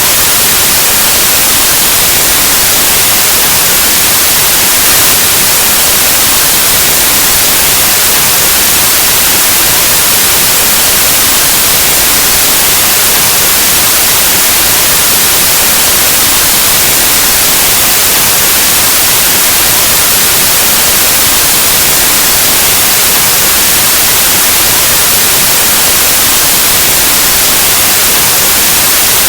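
Steady static white noise: loud, even hiss across the whole range, unchanging throughout.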